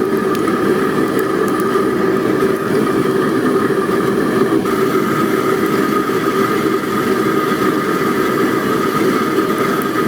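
A forge running with a steady, unchanging drone.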